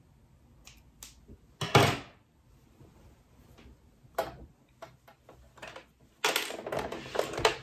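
Scissors and fabric being handled on a sewing table: a few light clicks and a loud clack of the steel scissors about two seconds in, then a couple of seconds of sweatshirt fabric rustling and sliding near the end as the jacket is pushed into place under the sewing machine's presser foot.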